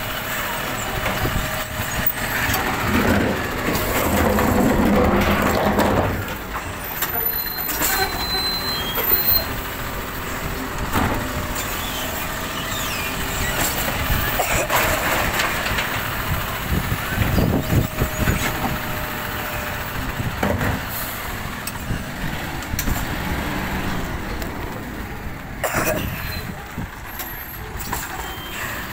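Side-loading recycling truck running while its hydraulic arm lifts a wheelie bin, tips it into the hopper and lowers it back down. There is a louder stretch of machine noise a few seconds in, then repeated knocks and clatter in the middle as the bin is emptied.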